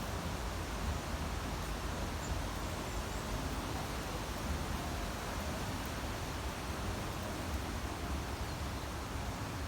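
Wind blowing, a steady rushing noise with a low rumble of wind on the microphone, and a faint short bird chirp or two about two seconds in.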